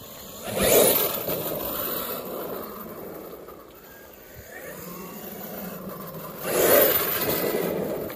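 Arrma Outcast 8S brushless electric RC stunt truck driving on asphalt, its motor and tyres surging loudly as it accelerates, about a second in and again near the end.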